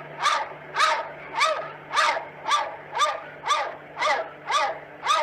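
A dog barking over and over in a steady rhythm, about two barks a second, each bark rising and falling in pitch.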